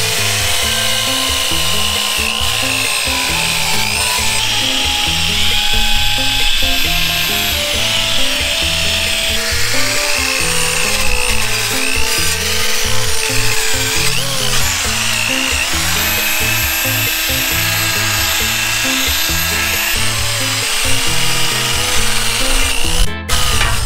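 Background music with a steady beat over a corded drill spinning a wire wheel brush against the metal bench end to strip old paint and rust, its whine shifting in pitch as it bears on the metal.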